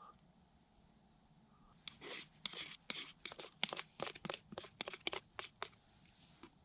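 Plastic bags crinkling and rustling in a quick run of sharp crackles, as they are pulled on over socks. The crackles start about two seconds in and stop shortly before the end.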